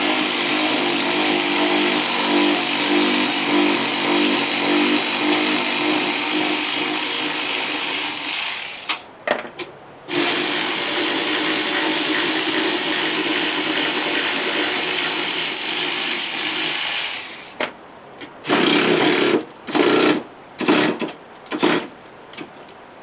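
A cordless power tool runs in two long pulls of several seconds each, then gives a few short bursts before cutting out as its battery goes flat.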